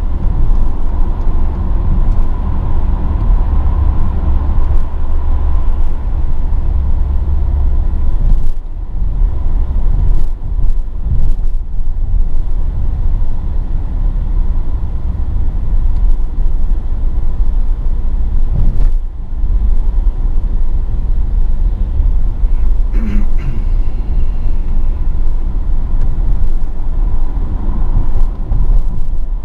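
Mercedes-AMG GLE 43's twin-turbo V6 driving: a continuous low rumble of engine, tyres and wind noise. The level dips briefly a few times.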